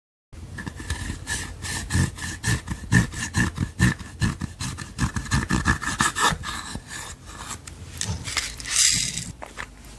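Clear slime being mixed and worked, giving a quick, irregular run of sticky clicks, pops and squelches.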